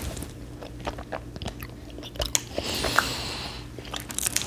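Close-miked chewing of a super-sour energy-drink bubble gum: wet mouth clicks and smacks, with a brief hiss about halfway through.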